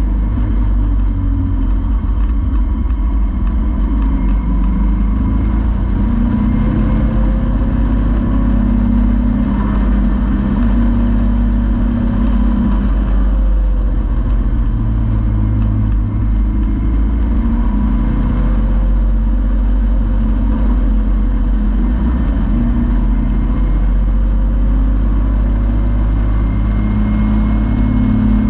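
Caterham sports car's engine running under load on the move, its note rising and falling gently as the revs change, heard from the open cockpit over a steady low rumble of wind and road.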